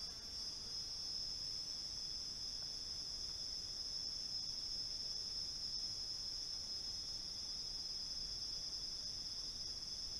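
Steady chorus of insects: a continuous high-pitched trill with a second, lower steady tone beneath it.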